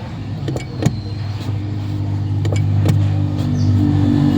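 Toyota Innova with its engine running, a steady low hum that grows louder about a second and a half in. Several short sharp clicks sound over it, the loudest about a second in: the odd noise the owner hears at the clutch pedal.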